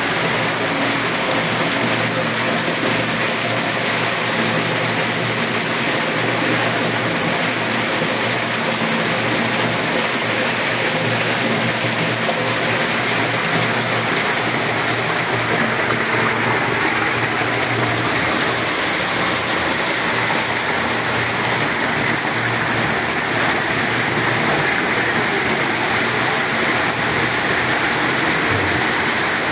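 Water falling and splashing steadily down a small homemade waterfall, a continuous even rush.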